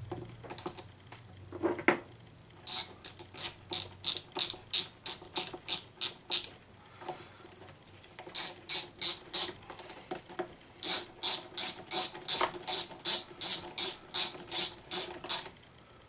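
Hand socket ratchet clicking as it runs two 10 mm nuts down onto a leaf blower's air cleaner base, about four clicks a second in three runs with short pauses between, until the nuts are snug.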